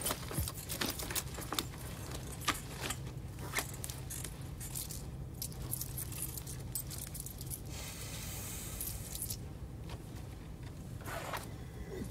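Loose coins jingling and clinking in short bursts as they are handled, over a steady low car-cabin hum.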